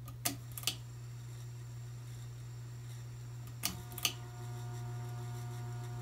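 Ceiling fan pull-chain speed switch clicked twice, each pull a double click, near the start and about four seconds in. Under it runs the steady hum of a Casablanca Delta II's Emerson K55 motor spinning without its blades. After the second pull the hum gains several higher steady tones as the motor changes speed.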